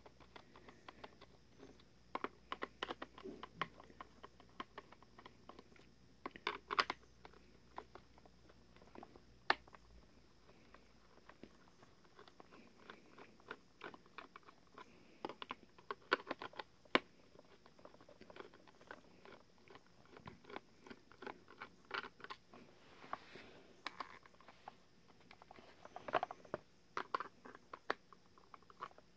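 Hand screwdriver turning screws out of the hard plastic body shell of a Rock-a-Long Santa animatronic: faint, irregular small clicks and scrapes, with a few sharper ticks scattered through.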